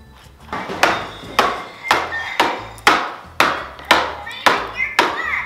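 Background music with a steady percussive beat, about two struck notes a second, over a low bass line.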